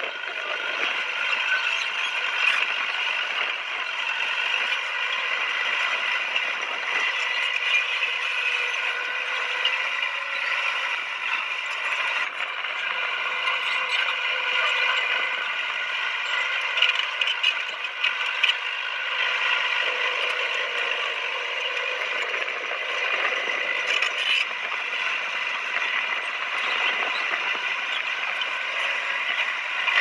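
Crawler bulldozer working: the engine runs steadily under a continuous metallic clatter from the running gear.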